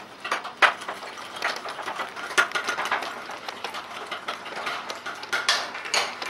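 Metal spoon hand-whipping Dalgona coffee (instant coffee, sugar and hot water, still dark and syrupy) in a ceramic bowl, clicking and scraping against the bowl in quick, irregular strokes.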